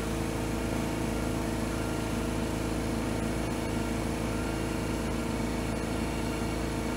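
Steady motor hum: a low drone with several fixed tones, unchanging, from a machine running in the workshop.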